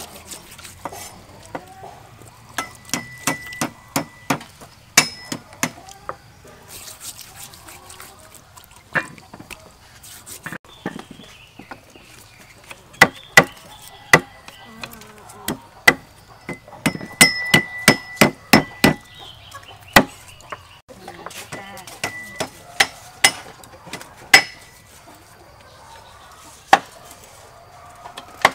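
Knife chopping on a wooden chopping block: irregular sharp strokes with quick runs of several in a row, some leaving a short metallic ring from the blade.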